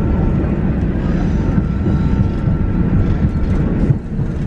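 Passenger train running, a steady low rumble heard from inside the carriage, briefly dropping in loudness about four seconds in.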